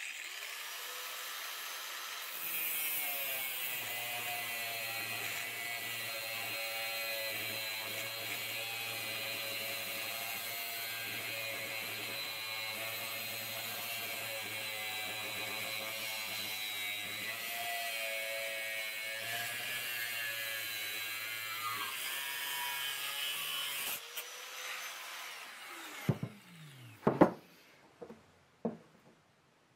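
An angle grinder with a cutting disc spins up and cuts through a metal rod held in a vise, a steady high whine with a hiss for about twenty seconds, then winds down with a falling pitch. Near the end, a few sharp metal clinks as steel parts are handled on a metal bench.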